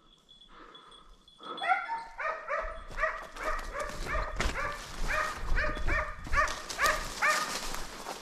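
A hare-hunting hound giving voice on a hare: a fast run of barks, about three a second, faint at first and much louder from about a second and a half in. A rough noise runs beneath the barks through the second half.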